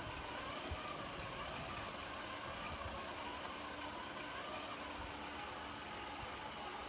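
Small electric drive motors of a hobby rover whining, the pitch drifting up and down as the throttle and steering sticks are moved.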